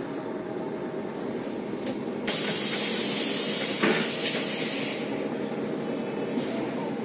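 SOR NB 12 city bus's pneumatic doors working: a sudden loud hiss of released air about two seconds in that fades over a few seconds, with a short knock partway through, over the steady hum of the idling bus.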